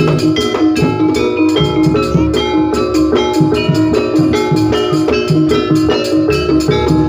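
Jaranan pegon music: struck metal gamelan-type keys ringing short notes in a quick, steady interlocking pattern over drum strikes and a heavy bass line.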